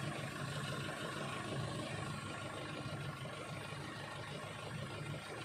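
Hyundai Starex van's CRDi common-rail diesel engine idling steadily, low and even.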